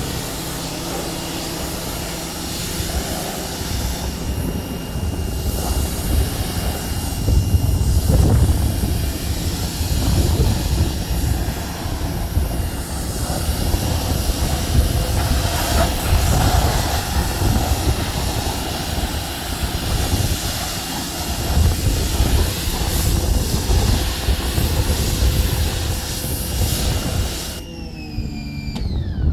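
Helicopter passing overhead, a steady low engine-and-rotor rumble, over the hiss of a pressure washer spraying with a steady high motor whine. Near the end the spray stops and the whine falls in pitch as the electric pressure washer's motor winds down.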